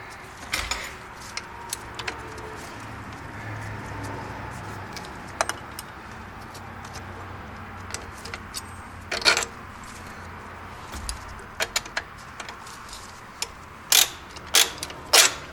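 Intermittent metallic clinks and clicks of hand tools and fasteners against engine parts, with a louder cluster of three sharp clinks near the end.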